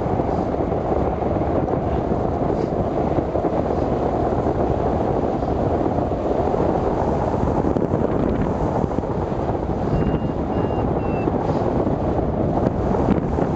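Steady, loud wind rushing over the microphone of a camera on a hang glider in flight, a dense low rumble. About ten seconds in, three short faint high beeps from the glider's variometer.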